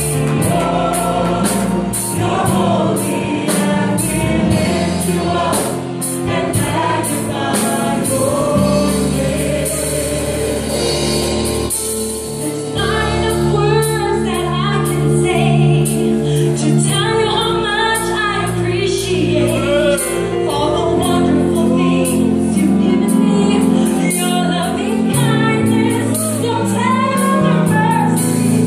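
Church praise team singing a gospel worship song live: a woman's lead voice over backing singers, with band accompaniment keeping a steady beat.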